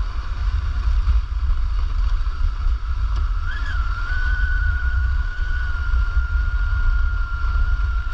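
Brushless electric motor of a 1/5-scale 12S Kraken Vekta.5 RC car whining at a steady pitch under throttle, with a brief rise and fall in pitch about three and a half seconds in. A heavy low rumble runs underneath.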